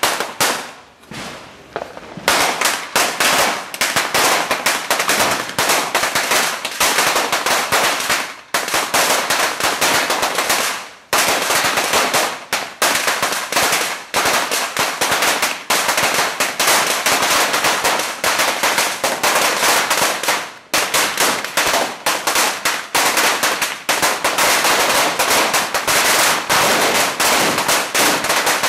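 Firecrackers going off in rapid, almost unbroken crackling runs, with a few short gaps between strings.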